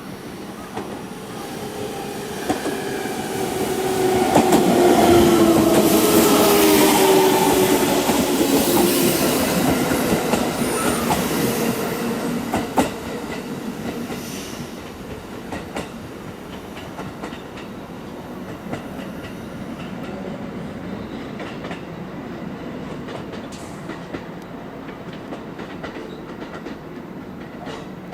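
KiYa 95 'Doctor Tokai' diesel track-inspection train passing: the noise builds over a few seconds, is loudest as it goes by with its engine tones sliding down in pitch, then eases to a steadier rumble of wheels on the rails.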